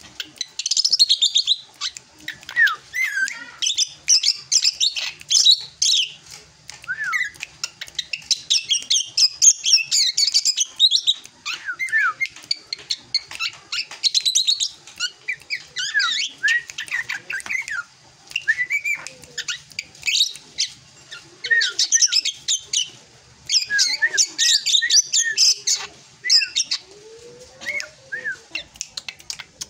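Young drongo (srigunting) singing: fast, chattering and twittering phrases laced with downward-slurred whistled notes, in bursts of a second or few separated by short pauses. It is the varied song of a bird still coming into its adult voice.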